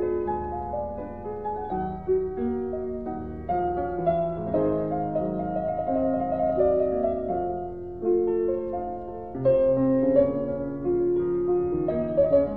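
Piano music from a 1950s film soundtrack album: a slow melody over held chords, the notes changing every half second to a second.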